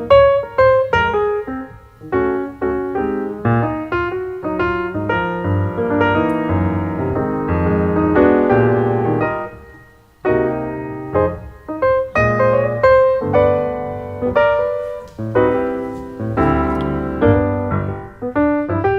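Background piano music: struck notes and chords with a melody, pausing briefly about ten seconds in.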